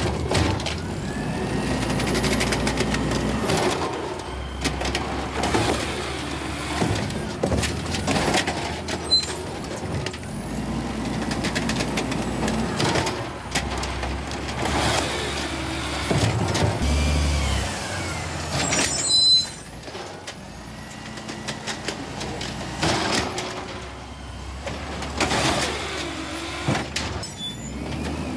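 Automated side-loader garbage truck emptying trash carts: the engine revs up and down as the hydraulic arm grabs, lifts and dumps each cart, with rising and falling hydraulic whines and repeated clanks of the cart against the hopper. The loudest bang comes about nineteen seconds in.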